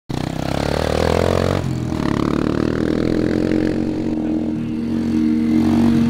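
Small Yamaha dirt bike engine running at low speed as it is ridden slowly across a muddy field. The sound changes abruptly about a second and a half in, then holds a steady pitch.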